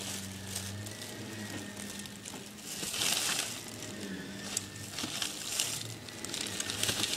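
A candy bag rustling and crinkling in several bursts as a hand digs through it, loudest about three seconds in.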